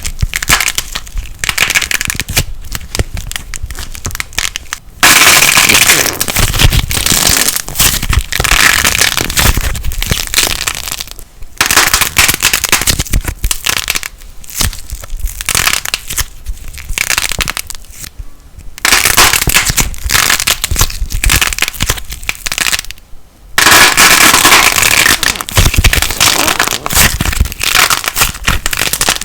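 Light plasticine (airy foam-clay slime) being squeezed and pressed by hand, giving dense, rapid crackling and popping. It comes in several sections that change abruptly a few times.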